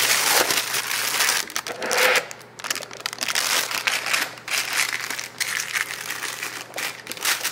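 Disposable plastic piping bag filled with macaron batter crinkling and rustling as it is pulled off a holder cup, then squeezed and twisted by gloved hands. The rustling starts suddenly and comes in uneven surges.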